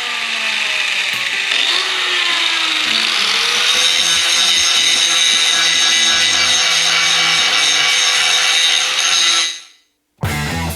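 Power grinder grinding old weld beads off the steel of a fence post driver, its whine rising in the first few seconds, then running steadily before cutting off near the end.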